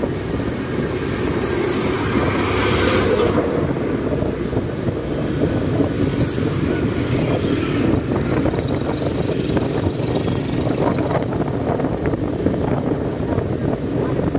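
Motorcycle riding along a road: steady engine and road noise heard from the bike itself, with a louder rushing swell about two to three seconds in.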